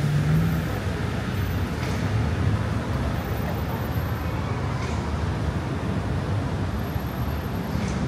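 Steady city road traffic: a continuous low rumble of passing cars, with one vehicle's engine hum standing out at the start and fading within the first second.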